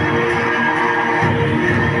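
Music with a steady beat, played loud, with held notes over regular percussion hits.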